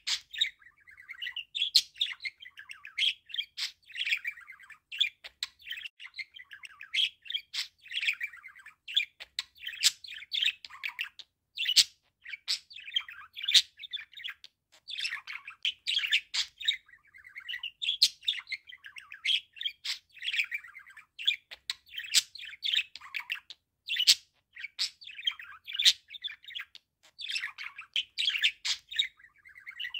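Green-and-yellow male budgerigar warbling: a continuous, fast chatter of chirps, squeaks and sharp clicks in short phrases with brief pauses.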